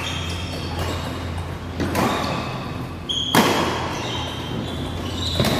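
Badminton rally: rackets striking a shuttlecock, three sharp hits roughly one and a half to two seconds apart, over a low steady hum in the hall.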